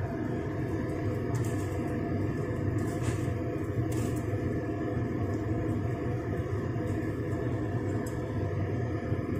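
A steel pot of water at a rolling boil, bubbling with a steady low rumble, while pieces of corn on the cob go in, with a few faint clinks about 1.5, 3 and 4 seconds in.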